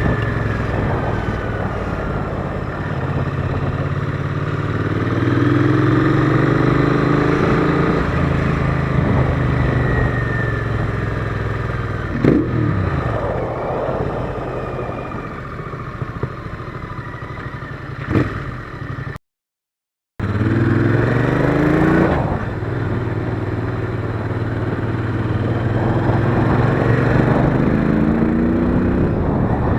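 Royal Enfield Interceptor 650's parallel-twin engine under way, pulling up through the gears so its pitch rises and falls several times. There are two sharp knocks along the way. The sound cuts out completely for about a second roughly two-thirds of the way through.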